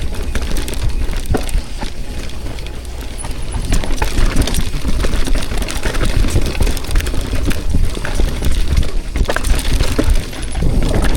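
Mountain bike riding fast down a rough dirt trail: wind buffeting the camera microphone as a heavy rumble, with a constant clatter of knocks and rattles from the bike over the bumps.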